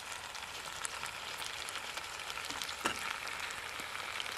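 Ground onion and mint masala sizzling steadily in a stainless steel pot as raw chicken pieces are dropped in by hand, with a single sharp knock about three seconds in.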